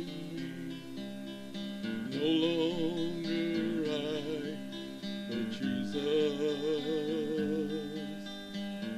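A man singing a gospel song to acoustic guitar, with long held notes and vibrato.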